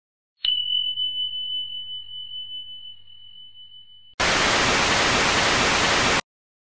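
A single bell-ding sound effect about half a second in, one high tone ringing out and fading. It is cut off abruptly by about two seconds of loud TV-static hiss that stops suddenly.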